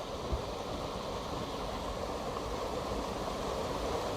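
Steady rushing of a mountain stream's water, an even hiss-like noise with no distinct splashes.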